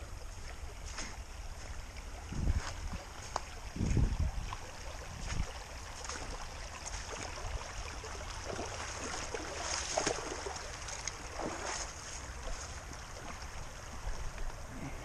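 Footsteps crunching through dry leaf litter beside a shallow babbling creek, with scattered short crackles. Low buffeting thumps hit the microphone about two and a half and four seconds in, the loudest sounds here.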